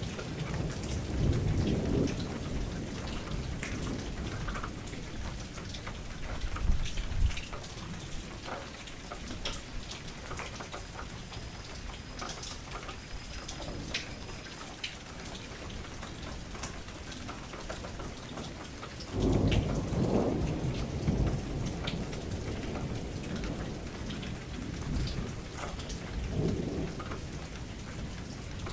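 Steady rain with scattered drops striking close by, under low rolls of thunder: one near the start, a short one about seven seconds in, the loudest about two-thirds of the way through, and a weaker one near the end.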